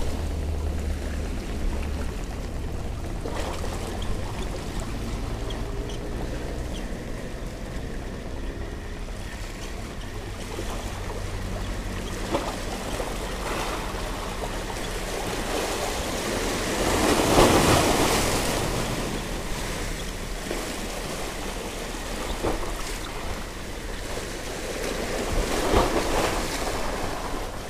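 Small sea waves washing and splashing against rocks at the water's edge. One wave surges in louder about seventeen seconds in, and another comes near the end.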